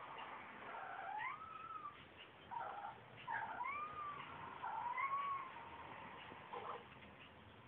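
Domestic cat meowing repeatedly: about five squeaky meows that rise and fall in pitch, three long and two short. The calls sound like a squeaky door.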